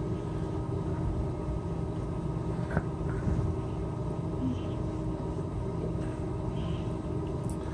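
Steady low room rumble and hum of an indoor play area, with faint steady tones and one soft click a little under three seconds in.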